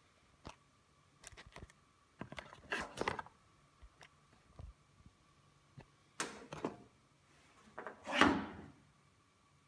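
Handling noise: scattered light clicks and knocks, then a louder rustle about eight seconds in as the camera swings. Under it runs a faint steady whine.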